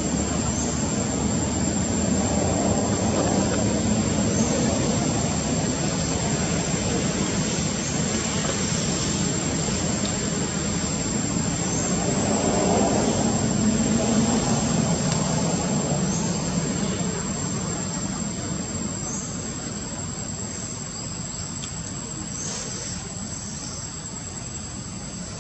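Low rumble of distant engines, swelling twice and then slowly fading, with a thin steady high-pitched whine over it.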